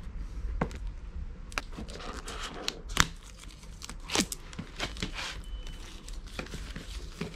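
Seal and plastic wrapping of a cardboard box being torn open by hand: an irregular run of crinkling, tearing and crackling clicks, with one sharp crack about three seconds in.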